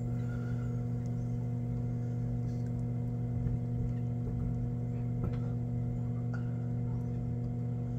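Hot tub pump motor humming steadily, a constant low electrical drone.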